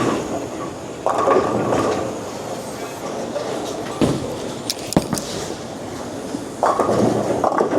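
Bowling ball rolling down the lane with a steady rumble, then knocking into the pins about four and five seconds in.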